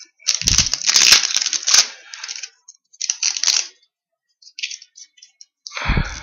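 A foil pack of Black Diamond hockey cards being torn open and its wrapper crinkled, in rough rustling bursts over the first two and a half seconds and again briefly about three seconds in, then scattered small rustles and a low bump near the end.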